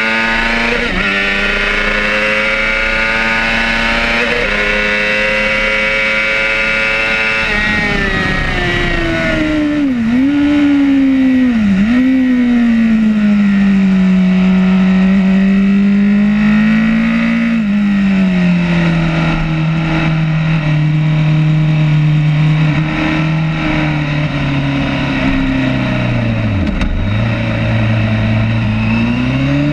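Racing superbike's engine at high revs under hard acceleration, then dropping in pitch as the throttle closes and the rider downshifts, with brief dips, and running at lower revs before picking up again near the end. Wind rushes over the bike throughout.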